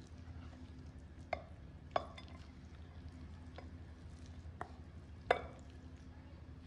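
A wooden spoon scraping thick halawa out of a metal saucepan into a glass dish, with about five light knocks and clinks as the spoon and pan touch the dish, over a faint low hum.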